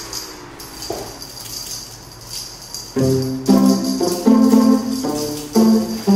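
Background music: light percussion with a high shimmer, joined about halfway through by a louder melody of held notes.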